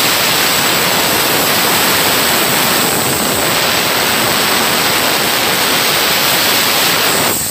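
Compressed-air blow gun hissing steadily and loudly, its nozzle held into a valve port of a diesel cylinder head to test the intake and exhaust valves for leaks.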